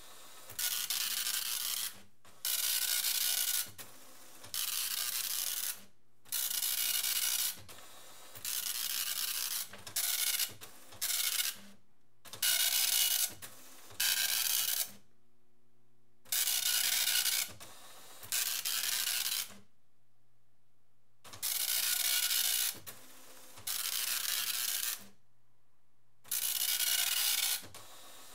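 Citizen 120D+ dot matrix printer printing line after line. Each pass of the print head makes a harsh rasping buzz of about a second. The passes are separated by short gaps as the paper feeds, with a few longer pauses of one to two seconds between news items.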